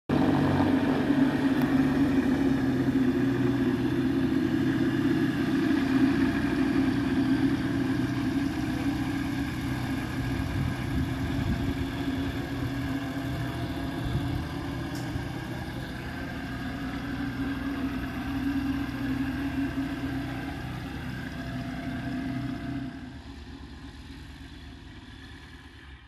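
Ikarus C42 microlight's propeller engine running at taxiing power as the aircraft rolls past and away, with a steady drone that fades gradually and then drops away sharply near the end.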